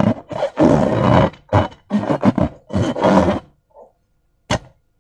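Slime being squished and squeezed by hand, a quick run of about six squelches, then one short sharp snap near the end.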